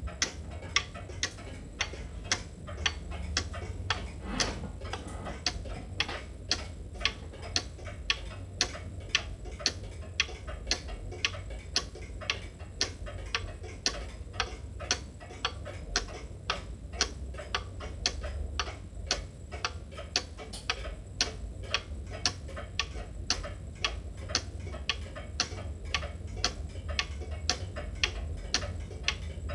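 Cuckoo clock's pendulum movement ticking in a steady, even tick-tock.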